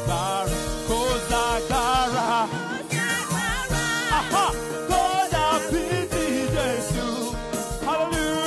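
A man singing a gospel song into a microphone over instrumental accompaniment with a steady beat.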